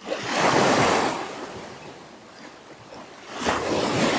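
Small waves washing up on a sandy beach, the surf swelling twice, once at the start and again near the end.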